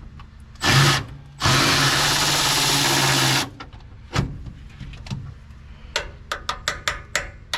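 A power drill or driver runs in a short burst, then for about two seconds at a steady speed. Near the end comes a quick run of sharp knocks, several a second.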